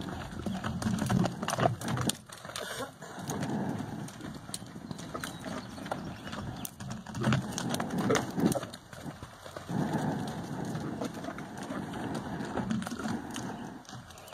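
Hoofbeats of a mustang cantering on soft dirt: dull thuds in uneven groups, with occasional sharper clicks.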